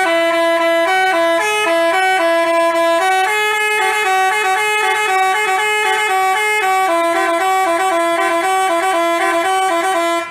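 Basuri telolet bus horn playing a quick melody of short, stepping horn notes.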